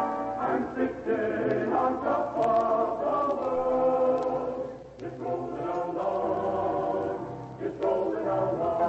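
A choir singing a sustained choral passage in several parts, with a short dip in level about five seconds in.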